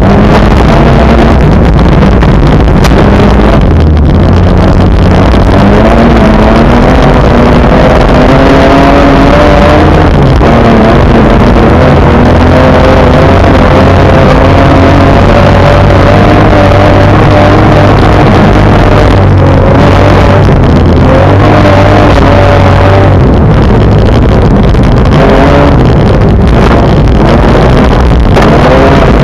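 Car engine heard from inside the cabin while driving on a snow-covered road. The engine pitch climbs steadily and drops back several times, as the revs rise through gear changes, over loud constant road and tyre noise.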